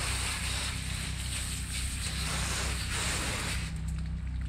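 Pressure washer spraying water, a steady hiss over the pressure washer's engine running steadily underneath. The high hiss thins out near the end.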